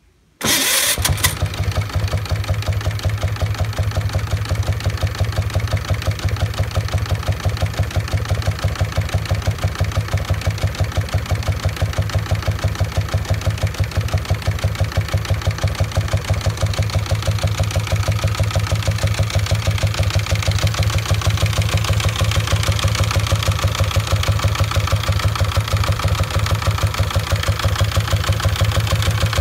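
Water-cooled 1100cc JAP overhead-valve V-twin of a Morgan three-wheeler started from the front, catching about half a second in, then idling with a steady, evenly pulsing beat.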